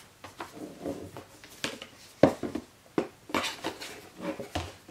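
Cardboard packaging and a paper-wrapped charger and cable being handled: a string of light taps, scrapes and rustles, with sharper knocks about two and a quarter seconds in and again at three seconds.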